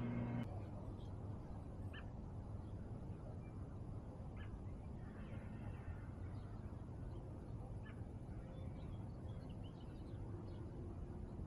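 Steady low background rumble with a few faint, short chirps spaced a few seconds apart; a humming tone cuts off about half a second in.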